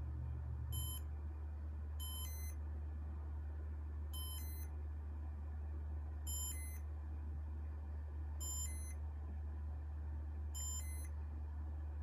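1992 Casablanca Stealth ceiling fan running with a steady low hum. Over it, a short high electronic beep repeats about every two seconds, six times.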